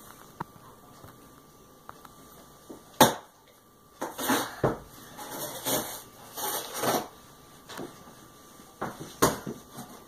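A sharp thump about three seconds in, then a few seconds of rustling and crinkling as a child handles the packing inside an opened cardboard box, and two more knocks near the end.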